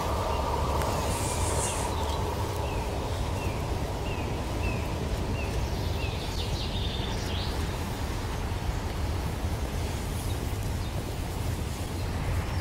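Steady outdoor background noise: a low rumble with an even hiss over it. In the first few seconds a small bird gives a run of short, high chirps.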